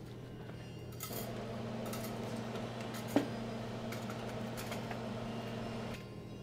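Quiet café room tone: a steady low hum, with a faint hiss from about a second in to near the end and a single click about halfway through.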